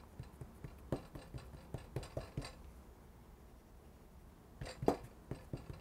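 Faint scattered taps and pats of hands pressing a round of pastry dough flat on a wooden board, in two clusters, the loudest tap about five seconds in.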